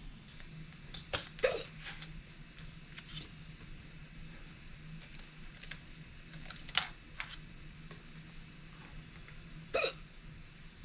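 A person hiccuping: short, sharp hiccups a few seconds apart, about three loud ones, with fainter clicks between.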